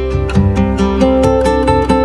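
Instrumental background music with plucked string notes in a steady rhythm.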